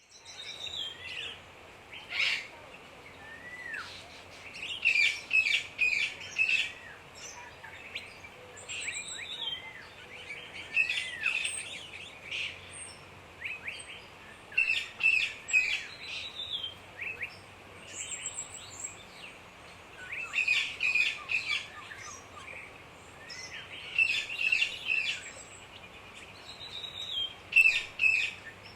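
Rainforest birds calling and singing, in clusters of rapid high chirps and short whistles that come every few seconds over a steady faint hiss of background noise.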